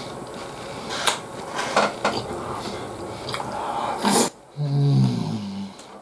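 Eating sounds: chewing, with chopsticks clicking and scraping against a takeaway beef-bowl container, then a loud rush of noise about four seconds in and a short low grunt just after.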